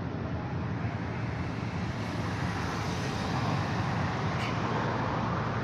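Steady outdoor background noise, a low rumble with a hiss over it, with one faint tick about four and a half seconds in.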